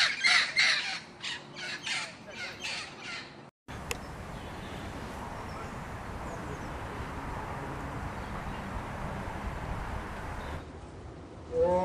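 Macaws squawking, repeated loud calls for the first three seconds or so; after a sudden cut, a steady quiet outdoor hiss with no calls. Near the end a tiger starts a deep call that rises and falls in pitch.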